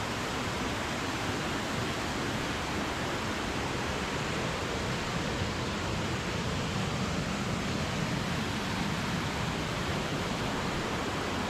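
Steady rushing of a waterfall pouring down over rock.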